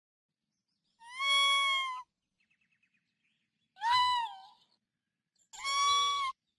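Three clear, meow-like animal calls, each about a second long and rising then falling in pitch, presented as a raccoon's call. A short run of soft, rapid ticks comes between the first two.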